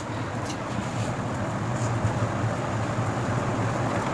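A steady low hum with an even rushing noise, with light rustles of satin fabric being folded and smoothed by hand near the start.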